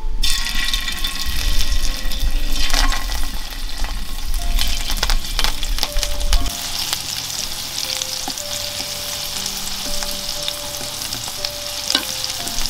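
Leaf-wrapped rolls sizzling in hot oil in a frying pan. The sizzle starts suddenly as the first roll goes in and stays loud and steady, with a few sharp clicks of the rolls and a wooden utensil against the pan.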